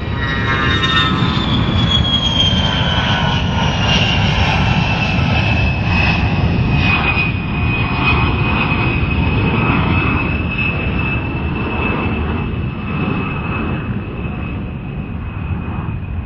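Attack jet's engines running with a steady low rumble and a high turbine whine. The whine falls in pitch over the first several seconds, then holds steady.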